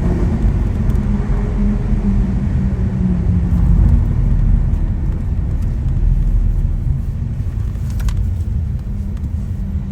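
Lamborghini Aventador SV's V12 engine with Capristo exhaust running steadily on the move: a loud, low drone that holds one pitch with no hard revving.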